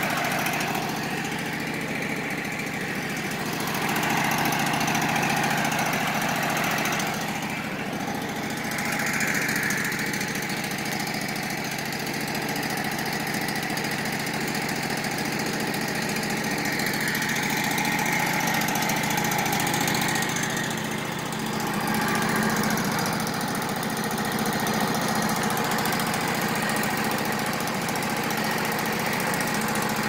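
Kohler Command PRO engine on a Wood-Mizer LT15 band sawmill running steadily.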